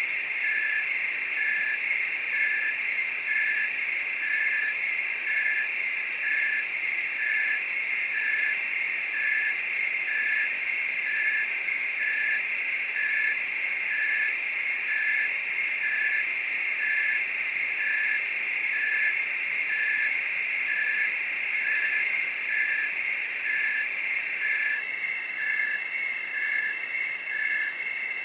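Night chorus of crickets and frogs: a steady high trill with a regular chirp repeating about one and a half times a second. A fainter, higher trill stops near the end.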